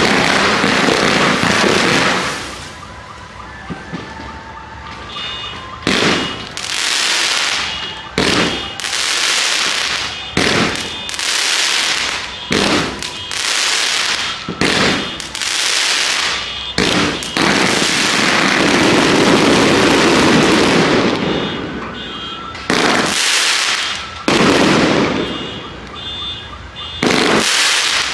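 Daytime coloured-smoke fireworks going off in quick succession: one loud whooshing blast after another, about a second each. About two-thirds of the way through, a longer rushing volley runs for several seconds.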